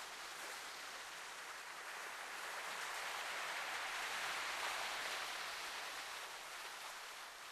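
Sea surf washing on a rocky shore: a steady hiss of water that swells to a peak about halfway through and then ebbs away.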